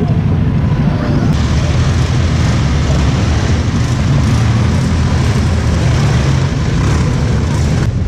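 Several quad bike (ATV) engines running close by, a steady, loud engine noise with no let-up.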